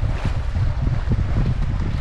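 Wind buffeting the microphone, over the rush and splash of water along the hull of a sailing yacht under way. The splash swells briefly near the start.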